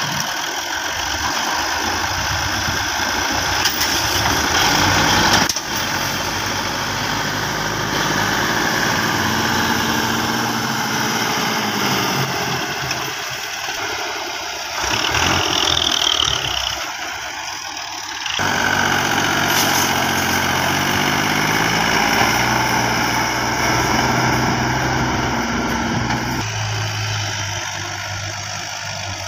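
Diesel farm tractor engines running under load, pulling a trolley heaped with sand through soft ground; the engine sound shifts abruptly a couple of times.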